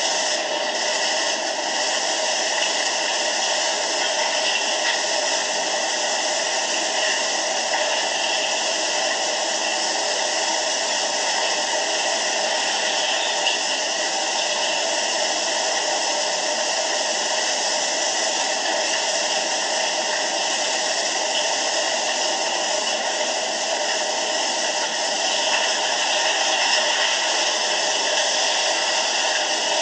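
Tsunami floodwater rushing and churning with debris, a steady, unbroken rushing noise.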